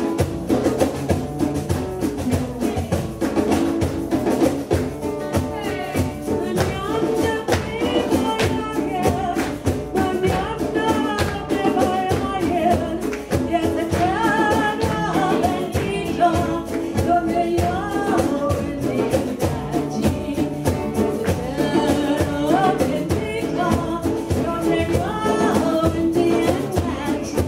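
Flamenco guajira music: a voice singing over guitar, with a steady, continuous rhythm.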